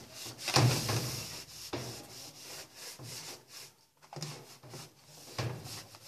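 Wet cloth rubbing against the bottom of a washing machine's tub, wiping off leftover dirt in a few separate strokes.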